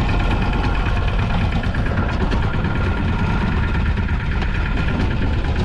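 A fishing boat's engine running steadily at idle, a constant low throb with a faint whine above it.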